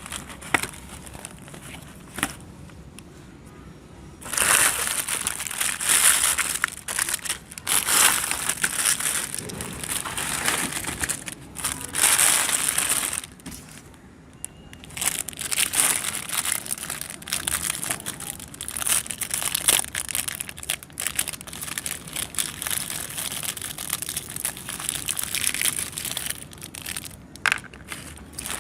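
Meat grinder crushing chocolate-coated Choco Munch biscuit snacks: dense crackling crunches in uneven spells, starting about four seconds in, with a short lull near the middle.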